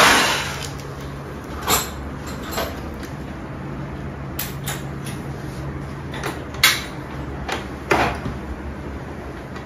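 Irregular knocks and clacks of hard parts and tools being handled during split air-conditioner installation work, about seven over several seconds, over a steady low hum.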